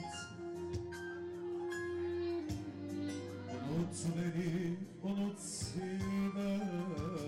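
Live band music: a melody of held notes with slides and ornaments over a steady bass line, an instrumental passage between the sung lines of a Turkish song, with an electronic keyboard playing.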